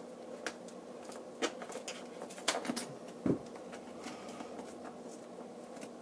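Screwdriver prying a copper box staple out of a cardboard lid: scattered small clicks and scrapes of metal against staple and card, then the cardboard box being handled, with a dull knock a little past three seconds in.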